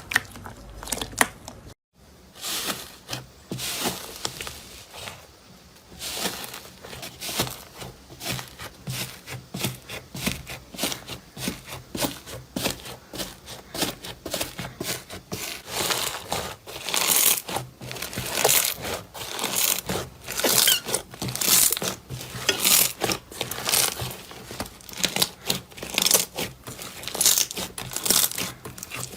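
Slime being squeezed and pressed by hand, giving dense, irregular crackling clicks and pops, with a brief gap about two seconds in.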